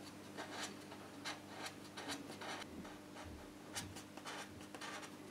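A Stanley knife blade shaving the outer edge of a 40 mm plastic waste pipe: a run of short, faint, irregular scrapes as the edge is chamfered so the pipe will push into a rubber adapter.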